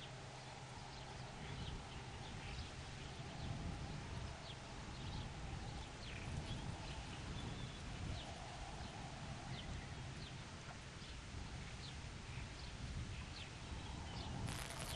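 Faint rural outdoor ambience: short, scattered high bird chirps over a low rumbling noise. Right at the end, a loud call with a wavering, falling pitch breaks in.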